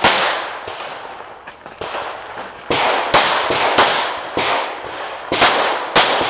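Glock pistol shots fired one at a time, about seven in all: one, a pause of over two seconds, then a quick string of shots about half a second to a second apart. Each shot is followed by a short echo tailing off.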